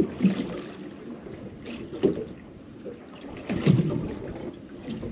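Wind on the microphone and water slapping against a small fishing boat's hull, with a few louder knocks about two and three and a half seconds in.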